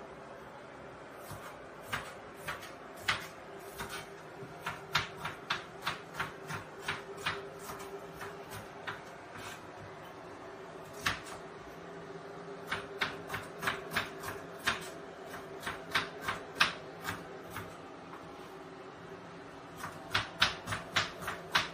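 Irregular sharp kitchen knocks and clicks, a few a second in runs with short pauses between, over a steady hum.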